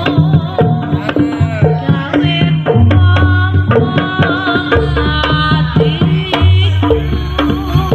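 Jaranan ensemble playing: kendang hand drums beat quick strokes over long, low gong tones, with a high wavering melody line above.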